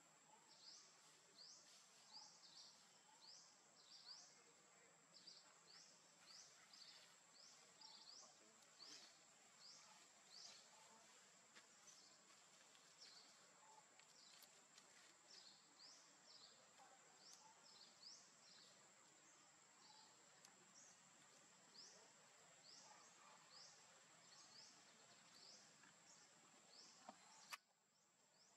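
Faint forest ambience: a steady high insect whine with short rising chirps repeating every second or so. A single sharp click near the end is the loudest moment.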